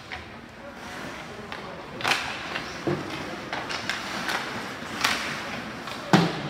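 Ice hockey play: a few sharp knocks and cracks of sticks and puck, four in all, the loudest just after six seconds in.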